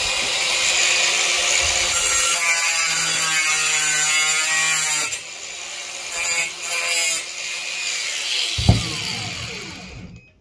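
Cordless angle grinder with a thin metal cutting disc cutting through mild steel sheet: a loud grinding screech for about five seconds, then two short bursts as it finishes the cut. Late on, a sharp knock, and the disc whines down in falling pitch as it slows.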